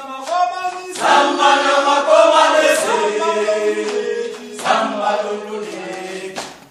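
A group of voices singing a revolutionary song together in harmony, unaccompanied; the singing dies away near the end.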